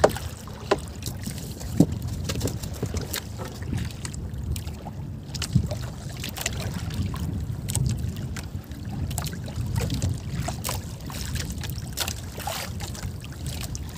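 Wind on the microphone and water lapping against a small wooden outrigger boat, a steady low rumble, with scattered small clicks and knocks as a handline is worked by hand.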